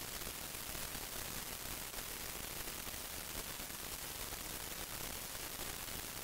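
Steady, even hiss of a recording's noise floor, with no other sound on top.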